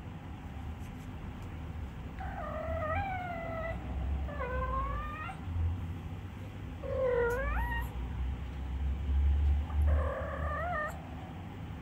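A Minuet (Napoleon) cat giving four soft meows, each about a second long with the pitch gliding and rising at the end, spaced one to two seconds apart. A low rumble runs underneath and swells between the last two meows.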